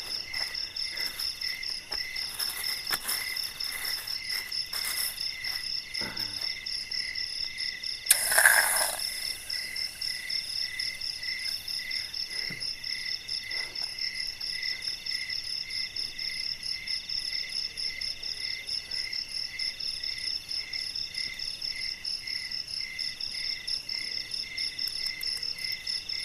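Night insects, crickets among them, chirping in a steady, pulsing, high-pitched chorus. About eight seconds in, a short loud burst of noise cuts through it for about a second, and there are a few faint clicks in the first few seconds.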